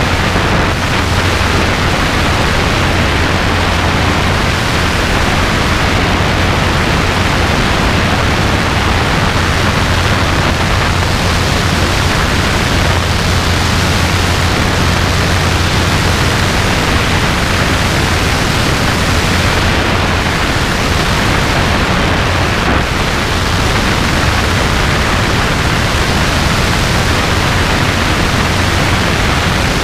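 Steady in-flight noise of a Robinson R22 helicopter: a constant rush of wind over the camera with a steady low drone from the engine and rotor underneath.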